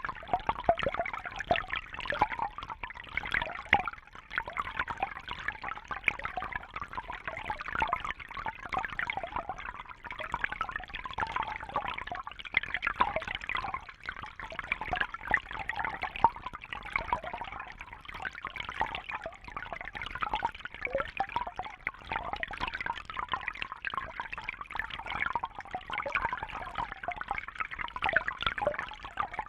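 A shallow brook babbling over stones: continuous gurgling, trickling water with a busy, flickering splash.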